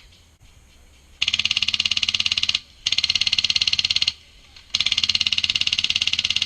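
G&G airsoft LMG with a Wolverine Inferno HPA engine firing three full-auto bursts, each a fast, even stream of sharp clicks, the last cut off abruptly.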